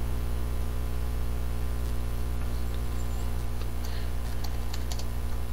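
Steady low electrical hum on the recording, with a few faint clicks from computer mouse and keyboard use.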